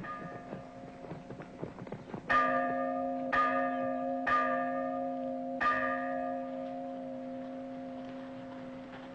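Church bell tolled four times, the strokes about a second apart, each one ringing on and slowly dying away. Before the first loud stroke the bell is heard faintly under the clop of horses' hooves.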